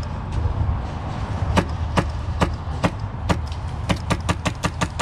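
Wolverine MTW HPA airsoft rifle firing single shots, about one every half second, then faster, around four or five shots a second, from roughly the middle on.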